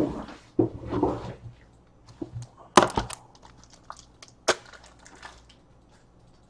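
Trading cards and rigid plastic card holders being handled on a tabletop: a rustling, scuffing stretch, then several sharp clicks and snaps, typical of magnetic one-touch card holders being snapped shut.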